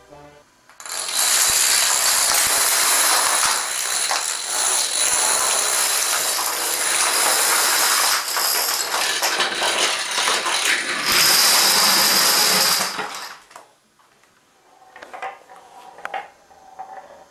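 Plastic dominoes toppling by the hundreds through long lines and large filled fields: a dense, continuous clatter that runs for about twelve seconds and stops abruptly. Only a few scattered, quieter clicks follow near the end.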